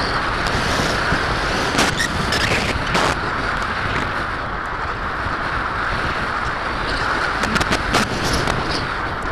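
Steady wind rush over an action camera mounted on a Parkzone Radian RC glider in flight, with a few short clicks and knocks from the airframe.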